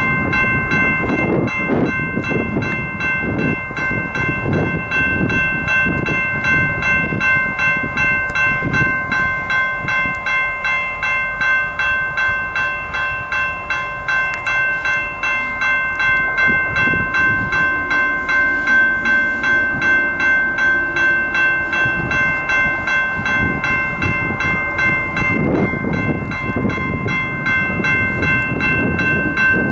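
A railroad crossing bell ringing steadily at about two to three strokes a second, over the low rumble of an approaching diesel-hauled unit coal train.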